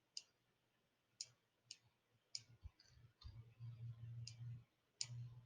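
Faint computer mouse clicks, about six scattered sharp clicks, with a faint low hum in the middle and near the end.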